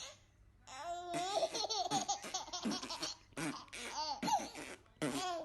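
Baby laughing in a long run of short, high-pitched bursts.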